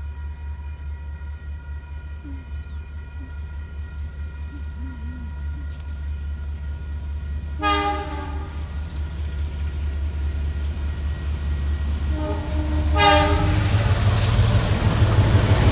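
DA-class diesel-electric locomotive approaching, its engine rumble growing steadily louder as it draws level. It sounds its horn twice in short blasts, about eight seconds in and again about thirteen seconds in.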